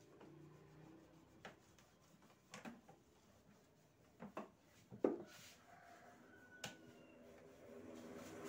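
A few soft clicks and knocks from a rice cooker being handled, its plastic lid and body bumped and opened. The loudest knock comes about five seconds in.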